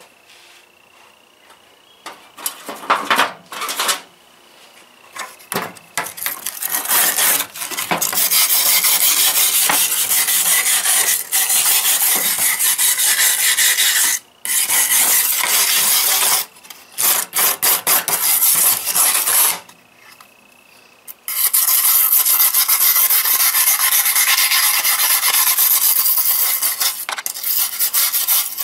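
Harsh rasping of a tool working on metal. It starts as a few short strokes, then runs on steadily for several seconds at a time with short pauses.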